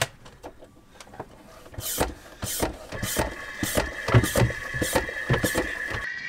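Hand-operated oil suction pump being worked to draw engine oil out of a Volvo Penta D2-55 diesel's sump. A run of pump strokes, a little under two a second, starts about two seconds in, and a thin steady whistle joins about halfway.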